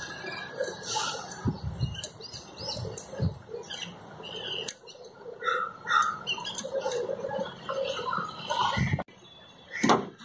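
Irregular light metallic clicks and scrapes of hand tools on a Mahindra jeep's wiper arm as its retaining nut is fitted onto the wiper spindle.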